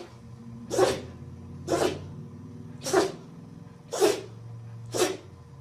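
A dog sneezing again and again, about once a second, five short sharp sneezes in a row, over a faint low hum.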